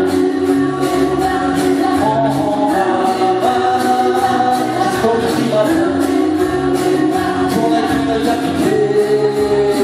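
Live 1960s-style twist music: several singers singing together into microphones over an amplified backing track with a steady beat.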